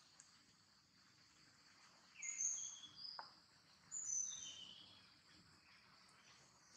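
Forest ambience: a steady high insect drone, with two short runs of whistled bird notes about two and four seconds in and a single soft click between them.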